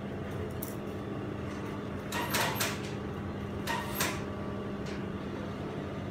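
Steady hum of an idling Brother industrial sewing machine. A few sharp clicks and knocks sound about half a second, two seconds and four seconds in, as the garment is shifted and worked under the needle.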